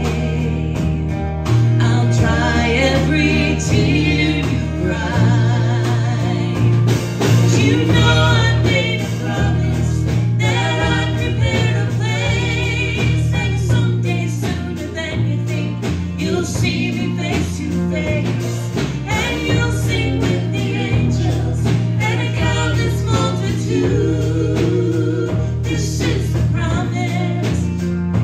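Live band playing a song: vocals with vibrato over electric bass, acoustic guitar, keyboard and drums.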